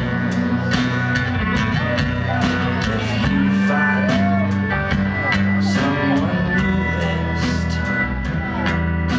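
Live garage-rock band playing loudly in a club: distorted electric guitars and bass over a drum kit keeping a steady beat, with the cymbals struck on every beat.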